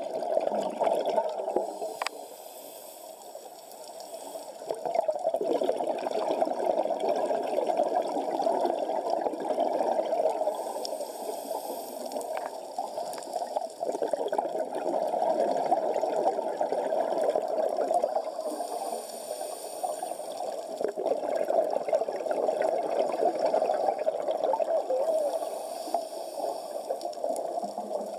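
Underwater sound of scuba diving: a steady, muffled rush of water, with divers' exhaled bubbles from their regulators hissing up now and then.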